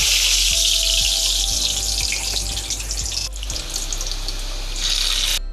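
Omapodi dough (gram-flour strands) frying in hot oil in a kadai, sizzling loudly and steadily; the sound cuts off suddenly near the end.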